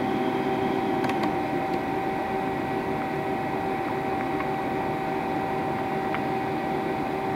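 A Hwacheon Hi-Tech 200A CNC turning centre running, a steady whine over a constant hum, with a couple of faint clicks about a second in.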